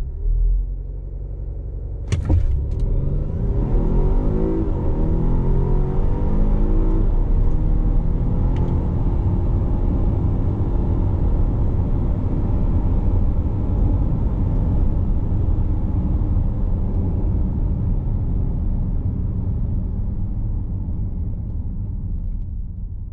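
2020 Volvo XC60 T8 Polestar Engineered's 2.0-litre turbocharged and supercharged four-cylinder hybrid drivetrain pulling away hard. After a low hum and a sharp click about two seconds in, the engine note climbs in pitch as the car accelerates, then settles into a steady rumble at speed that fades near the end.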